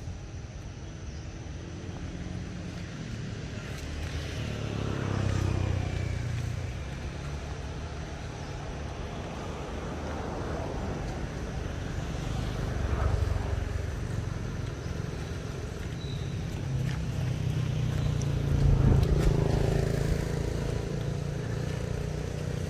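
A low rumble that swells and fades three times, about five, thirteen and nineteen seconds in.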